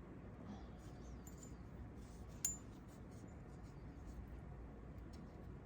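Quiet small-room tone with faint handling as a sewn seam is cut open, and one sharp metallic click with a brief ring about two and a half seconds in.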